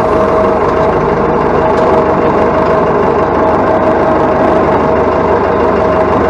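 Massey Ferguson 165's Perkins AD4.212 four-cylinder diesel engine idling steadily.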